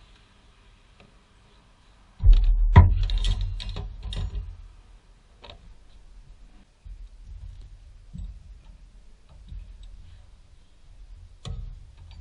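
Plastic engine cover on a Toyota 1ZZ-FE engine being pried and pulled off its mounts: a sudden loud pop and thump about two seconds in, then plastic clattering and knocking that dies away, and a few scattered clicks and knocks later on.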